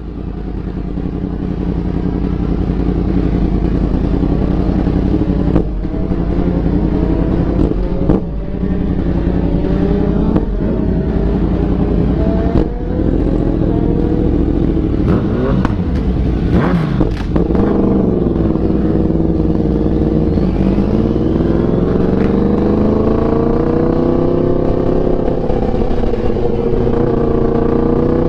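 Yamaha MT-10's crossplane inline-four engine running at low revs. Its pitch creeps slowly upward, then dips about two thirds of the way in and climbs again as the bike pulls away at low speed, with a few scattered clicks and knocks.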